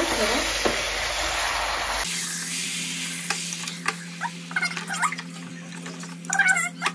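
Mutton pieces sizzling in hot oil in an aluminium pressure cooker while being stirred with a wooden spoon. The sizzle cuts off abruptly about two seconds in, leaving light knocks of the spoon against the pot.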